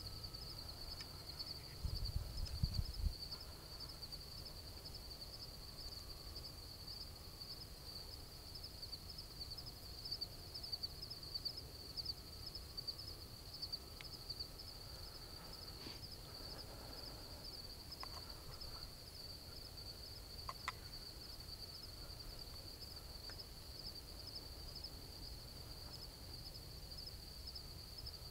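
Steady, rapidly pulsing high-pitched trill of insects in the brush, with a brief low rumble about two seconds in and a few faint ticks later.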